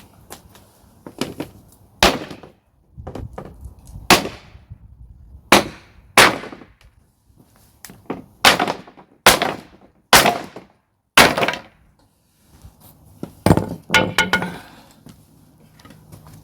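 Hammer blows on timber: about ten heavy, sharp strikes at irregular intervals of roughly half a second to a second and a half, knocking wooden planks apart.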